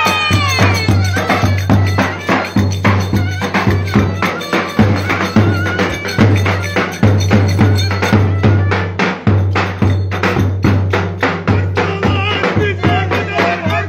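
Lively dance music with fast, dense percussion hits over a steady bass and melodic instrument lines.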